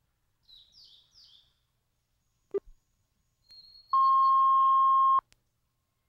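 Two quick high down-slurred bird notes, plausibly from a male blue-and-white flycatcher, and a single click; then, about four seconds in, a loud, steady, single-pitch electronic beep lasting just over a second that starts and stops abruptly.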